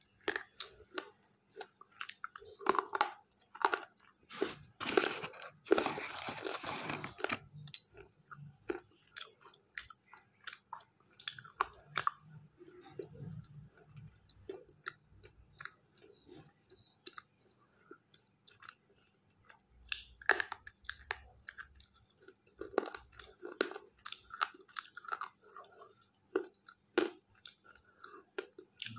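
Slate pencil being bitten and chewed close to the microphone: a string of sharp, gritty crunches, thickest about five to seven seconds in.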